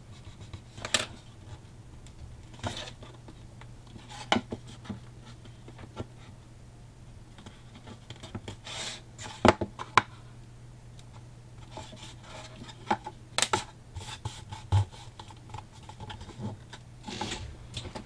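Cardstock on a cardboard box being pressed and smoothed into the corners by hand: scratchy paper rubbing and scattered light taps and clicks, the sharpest two about nine and a half seconds in, over a low steady hum.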